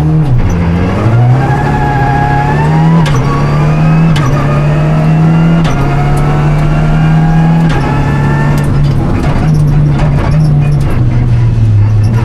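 Renault Clio Rally5's turbocharged four-cylinder engine heard from inside the rally car, accelerating hard on a stage: the engine pitch climbs and drops back with each upshift several times, with sharp clicks at some of the shifts.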